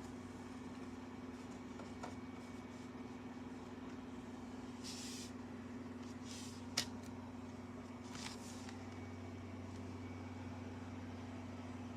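Steady low hum with hiss, broken by a few soft rustles and one sharp click about seven seconds in.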